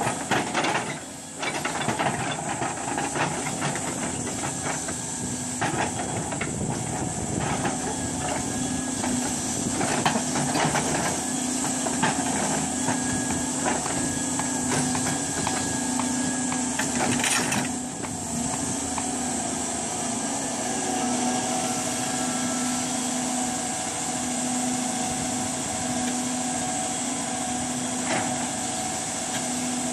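Doosan DX210W wheeled excavator's diesel engine running steadily under load with a hydraulic hiss as its rotating stone grab is worked, with occasional knocks of steel and rock.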